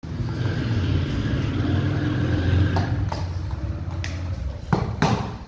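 A steady low motor rumble that fades about four and a half seconds in, with several sharp knocks in the second half, the loudest two near the end.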